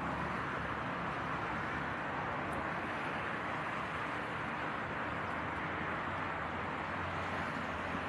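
Steady outdoor road-traffic noise, an even roar with no single vehicle standing out.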